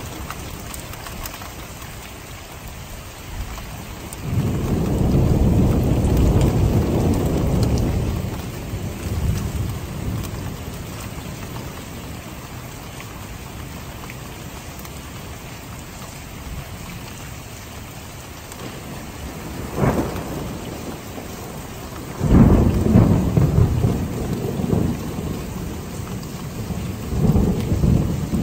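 Steady rain with thunder: a long rolling rumble begins about four seconds in and lasts a few seconds, a sharp crack comes about twenty seconds in, then more rumbling follows soon after and again near the end.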